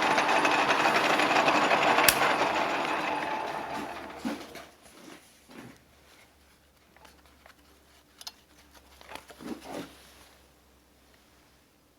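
Electric drill running steadily, with one sharp click about two seconds in, then winding down and stopping about four seconds in. A few light knocks and clicks follow.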